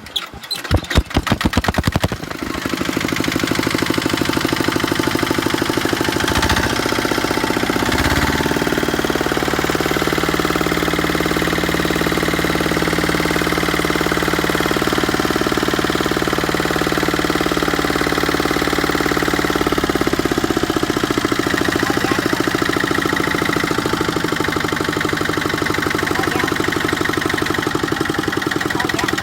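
Tractor engine starting with a few uneven firing strokes, then catching and running steadily, with a shift in engine speed about seven seconds in and again near twenty seconds.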